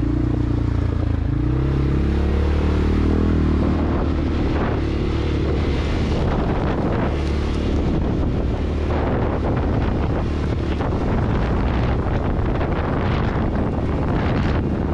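CFMoto 600 ATV's single-cylinder engine running on a rough dirt trail. Its note falls in the first few seconds as the throttle eases, then holds at a low, steady pace, with wind buffeting the microphone.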